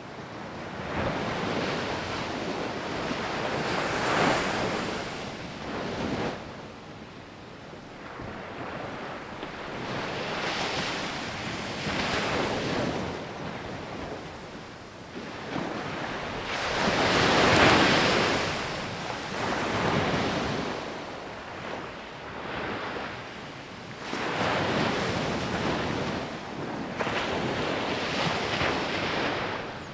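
Sea waves breaking on a beach, the surf swelling and falling back every few seconds, with the loudest break a little past halfway.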